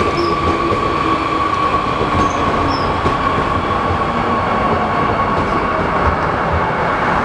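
Seoul Metro Line 2 subway train running along the platform: a steady rush of wheels on rail under a thin, steady high whine. A lower tone slides down in pitch over the first few seconds.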